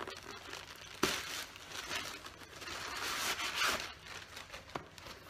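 Plastic shipping mailer being torn open and crinkled while a shoebox is pulled out, with a sharp rip about a second in.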